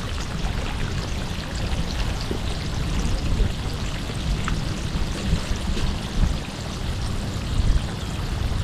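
Sea water splashing and trickling, with wind rumbling on the microphone.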